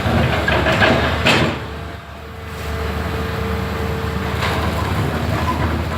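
Excavator engine running steadily with a low hum; the sound briefly drops about two seconds in, and a thin steady higher tone holds for a couple of seconds after the dip.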